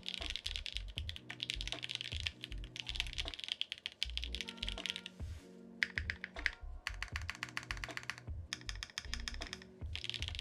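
Fast typing on a 65% custom mechanical keyboard with an FR4 plate: rapid keystroke clatter in runs separated by short pauses. Background music plays underneath.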